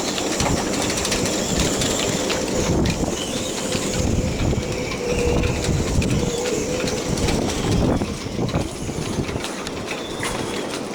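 Strong wind gusting across the microphone, with a low rumble that swells and eases and rattling clicks throughout.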